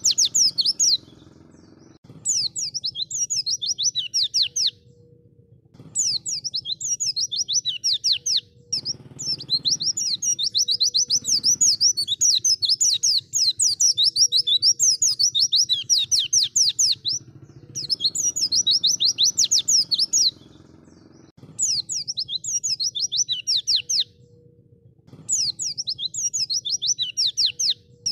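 White-eye (pleci) singing: fast, high twittering phrases of rapidly repeated falling notes, in bouts of a few seconds broken by short pauses, over a faint low hum.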